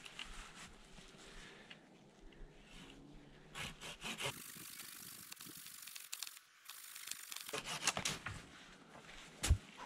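Small hand saw cutting through a thin birch pole with repeated uneven strokes until the pole parts, with a sharp thump near the end.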